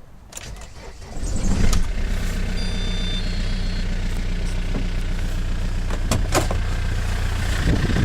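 Car engine starting about a second in, then idling steadily. It is recorded to show a background knock.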